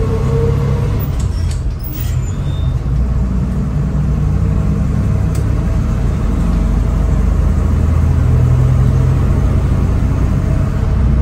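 1962 GMC panel truck's 305 V6 engine running under way, heard from inside the cab, its pitch rising up to about a second in. A brief dip in loudness with a few clicks about two seconds in comes as the four-speed manual is shifted, then the engine pulls steadily.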